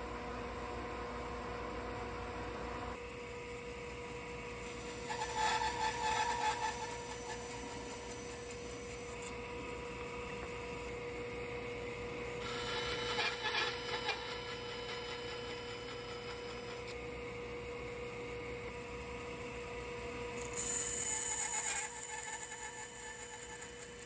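A hand tool working wood in three short bursts, each about a second and a half to two seconds long, over a steady faint hum.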